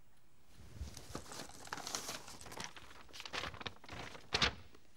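A large sheet of brown paper being unfolded and handled, rustling and crinkling irregularly, with a sharper crackle near the end.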